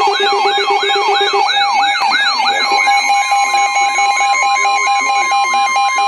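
Several NOAA weather alert radios sound their alarms together for a special marine warning: a siren-like warble rises and falls about three times a second over steady beeping tones. A little under halfway through, the warble fades and the steady weather-radio warning alarm tone takes over.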